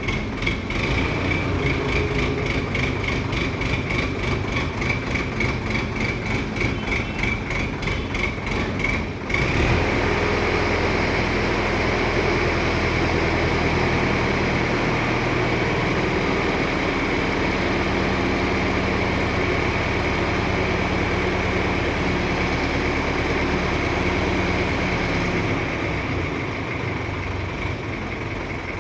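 A heavy engine running steadily. For about the first nine seconds it is overlaid by a rapid, even pulsing with a high tone, about three pulses a second, which stops abruptly; after that only the steady engine hum remains.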